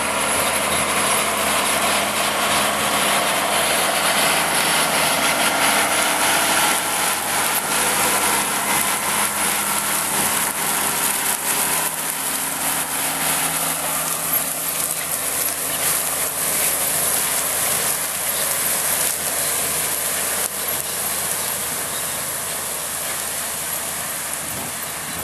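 A tractor engine running steadily while towing an 80 ft end-tow implement, with a continual clatter and rattle from the implement. The sound is loudest around six seconds in and slowly fades as the rig moves away.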